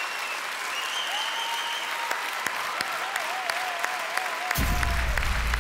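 Studio audience applauding, with a few held and wavering calls heard above the clapping. About four and a half seconds in, a deep bass sound comes in under the applause.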